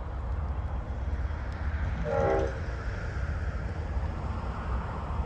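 Diesel locomotive horn on an approaching grain train, sounded once as a short blast about two seconds in, over a steady low rumble.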